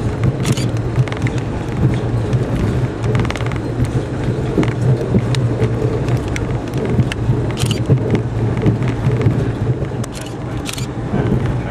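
Passenger rail coach running at speed, heard from inside the car: a steady low rumble of wheels on rail with scattered sharp clicks and ticks.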